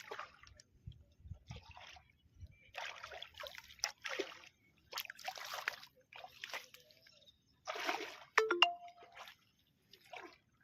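Water splashing and sloshing in about ten short, irregular bursts. A sharp knock with a brief ring comes a little past eight seconds in.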